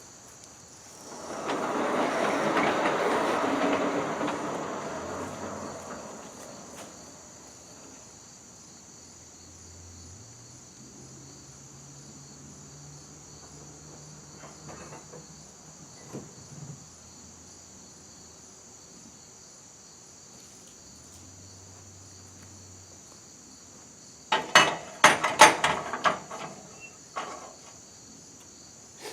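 Crickets chirring steadily in the background. A rushing noise swells and fades in the first few seconds, and a quick run of sharp knocks or clanks comes near the end.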